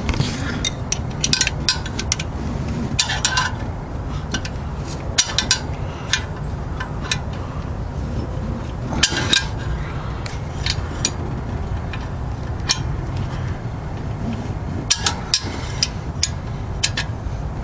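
Hand wrench clinking on exhaust header bolts as they are tightened: scattered sharp metallic clicks and ticks, some in quick clusters, over a steady low rumble.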